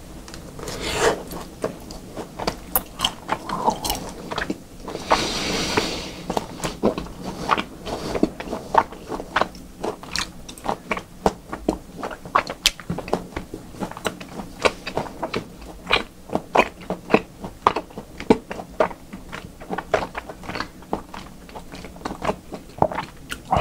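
Close-miked mouth chewing raw beef: wet clicks and smacks, a few each second, with a short rush of noise about five seconds in.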